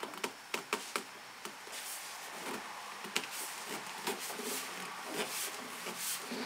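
Gloved hands turning a new spin-on diesel fuel filter canister (Nitto 4TD-507) to screw it onto its filter head: gloves rubbing and scraping on the metal can, with a quick series of light clicks and knocks in the first second and another sharp click about three seconds in.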